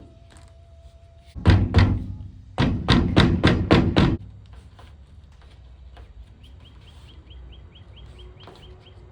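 Mallet blows seating a new rubber seal on a van's pop-out window: two blows about a second and a half in, then six quicker blows at about four a second.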